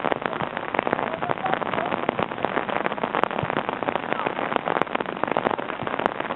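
Dense, steady crackling noise on a camcorder's built-in microphone, many small pops in quick succession, which drowns the sounds of the football match being filmed.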